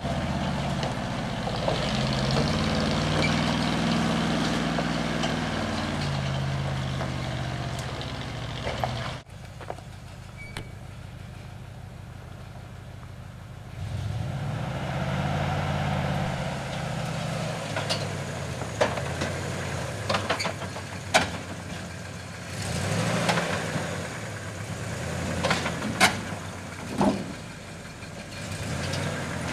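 Dodge M886 CUCV truck's V8 engine working under load off-road, its pitch rising and falling with the throttle, cut off abruptly about nine seconds in and returning a few seconds later. Sharp knocks and clanks come from the truck over rough ground in the second half.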